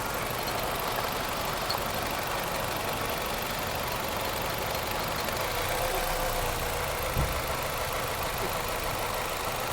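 2006 Nissan Altima engine idling steadily with its number 3 cylinder misfiring, a fault traced to a bad ignition coil pack. A brief low bump about seven seconds in.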